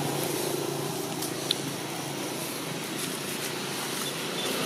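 Steady low hum of a motor vehicle engine with outdoor background noise, and a single faint click about a second and a half in.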